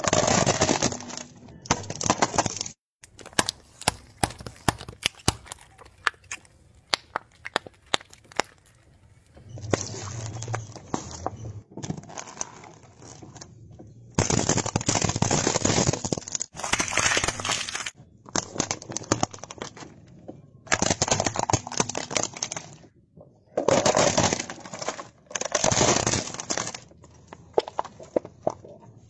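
Hard plastic toys cracking and breaking under a car tyre. A fast run of sharp snaps comes first, then several spells of crunching, each a second or two long.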